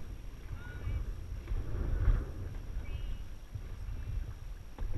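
Dragon boat under way, its crew's paddles dipping and splashing in unison, over a steady low rumble of wind on the microphone.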